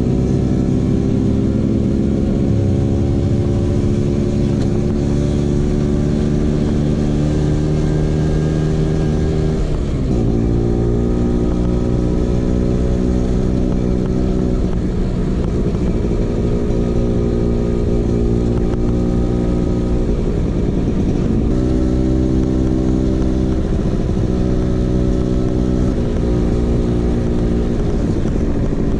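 Vespa PX 150's two-stroke single-cylinder engine running through an aftermarket DRC Victory racing exhaust while under way. The engine note holds steady, then dips sharply and climbs back about a third of the way in, and several more times later.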